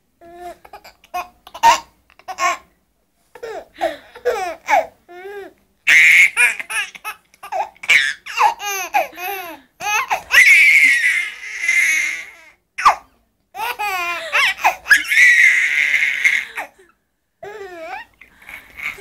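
A baby laughing in repeated bursts of high-pitched chuckles, breaking into longer, louder breathy squeals of laughter now and then.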